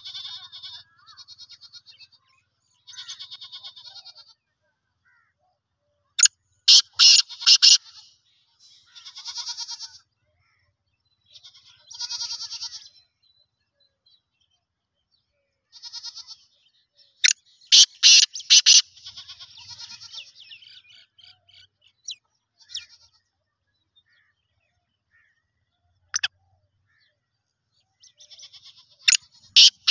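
Caged male black francolin calling: loud, harsh, rattling call phrases three times, about every eleven seconds, with softer high chirring notes in between.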